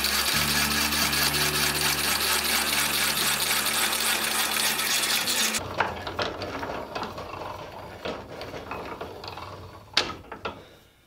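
Hand-cranked Silver Mfg Co drill press boring a 3/8-inch hole through steel rail, its gears and feed ratchet clicking. A louder, denser sound cuts off suddenly a little past halfway, leaving quieter ratchet clicks and a sharp click near the end.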